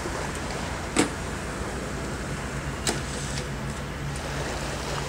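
Motor vehicle engine running with a steady low hum, broken by two sharp knocks about one second and three seconds in.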